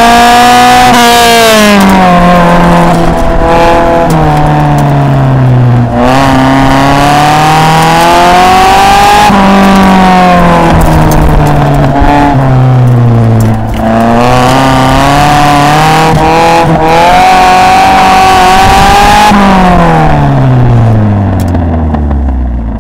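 1972 Datsun 510's L16 SSS 1.6-litre four-cylinder engine, heard from inside the cabin, revving up and down repeatedly under hard driving, with brief dips at gear changes or lifts. Over the last few seconds the revs fall steadily as the car slows to a stop.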